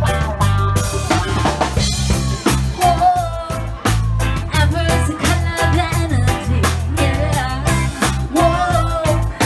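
Live band playing a reggae-rock song: a drum kit keeping a steady off-beat groove over heavy bass and guitar, with a singer's voice rising over it at times.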